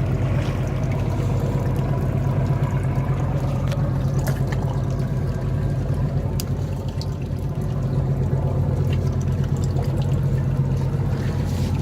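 Fishing boat's engine running steadily while under way, a low pulsing hum, with water rushing and splashing along the hull.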